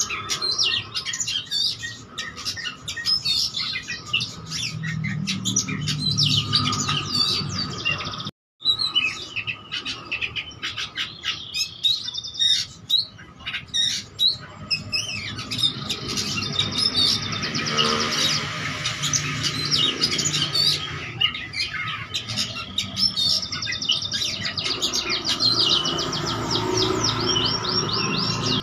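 Caged oriental magpie-robin (kacer) singing a long, varied song of loud whistles, chirps and harsh notes, with runs of rapid trilled notes and mimicked calls of other birds. The sound breaks off for a moment about eight seconds in.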